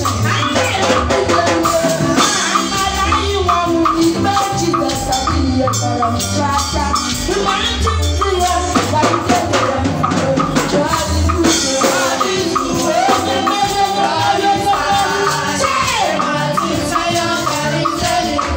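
Upbeat gospel praise music with a steady beat and shaker-like percussion, with a woman's singing voice over it.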